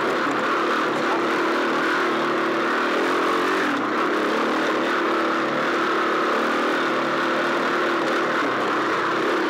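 Off-road motorcycle engine running steadily on the throttle, heard close from on the bike as it rides a dirt track, with a short dip in engine note about four seconds in.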